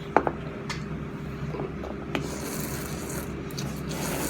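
Eating ramen at the table: a few sharp clicks of utensils against a bowl, the loudest just after the start, then hissy slurping of noodles in the second half, over a steady background hum.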